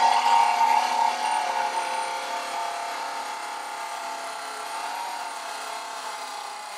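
Pneumatic 3M file belt sander grinding through a spot weld in ultra-high-strength boron steel: a steady air-motor whine over the hiss of the belt on the metal, slowly getting quieter.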